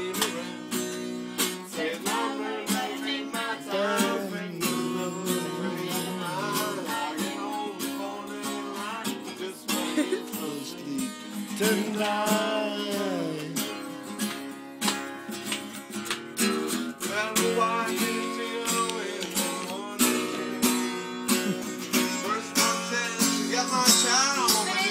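A song with a strummed acoustic guitar and a singing voice, playing without a break.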